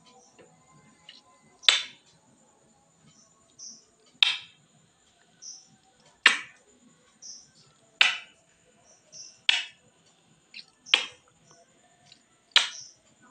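Repeated smacking kisses of lips against mirror glass, seven sharp smacks about one every second and a half to two seconds.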